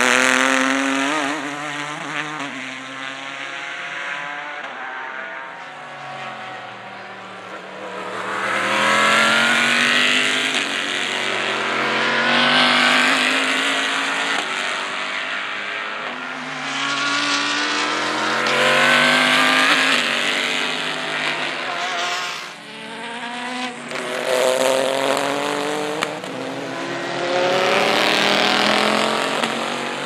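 Race cars passing one after another at speed, their engine notes sliding up and down in pitch as each one goes by, several times. The first pass is the Ford GT GTLM car's twin-turbo V6.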